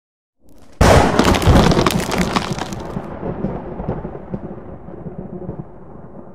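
Thunderclap sound effect: a sudden loud crack just under a second in, followed by a long rumble that slowly fades.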